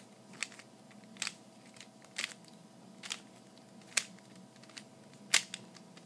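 A plastic 3x3 Rubik's cube being turned by hand. Its layers click sharply about once a second, six turns in all, the loudest about five seconds in, as the moves of an algorithm are done one after another.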